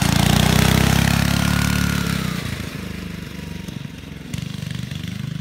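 Carter go-kart's 5 hp Briggs and Stratton single-cylinder engine running fast as the kart passes close and then pulls away, the sound falling in pitch and fading after about two seconds. The governor linkage is bypassed, so the throttle cable opens the carburetor directly.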